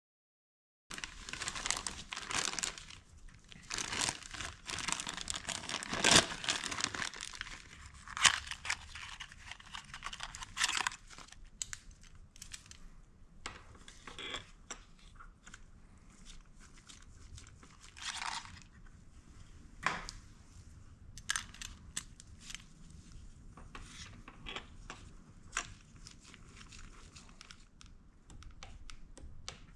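Hands working on a motorcycle engine: crinkling and rustling starting about a second in and lasting about ten seconds, then scattered light clicks and taps of parts and tools.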